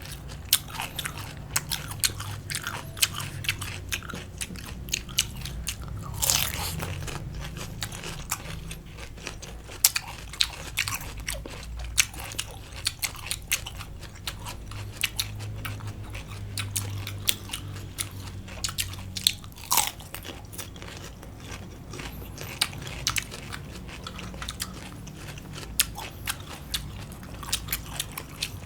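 A person chewing and biting crunchy green papaya salad and cucumber, with many irregular sharp crunches and wet chewing sounds.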